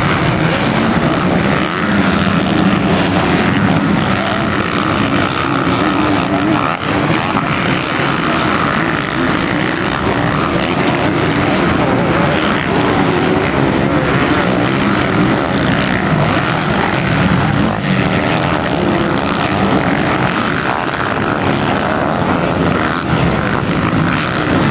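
450-class motocross bikes racing, their engines revving hard without a break.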